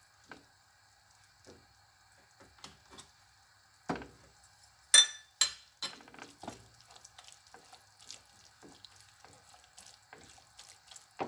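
Scattered scrapes and taps of a plastic spatula stirring ground beef, onion and green pepper in a frying pan, with a louder clatter about five seconds in.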